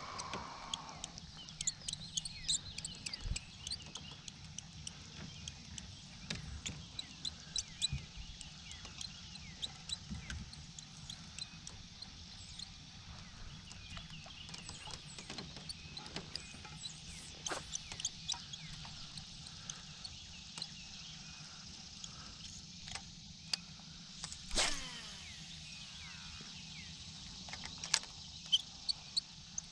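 Quiet ambience aboard a fishing boat on a calm lake: a steady low hum under scattered light clicks and knocks, with faint high chirps. About twenty-five seconds in comes one brief, louder sweep that falls in pitch.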